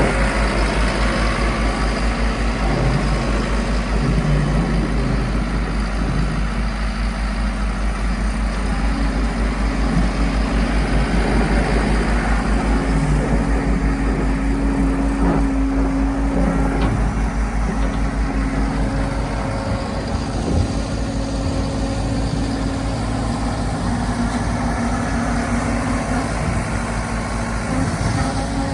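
Volvo MC115C skid steer's engine running steadily while it works the snow pile, with a low pulsing drone and a whine that grows stronger midway and eases again.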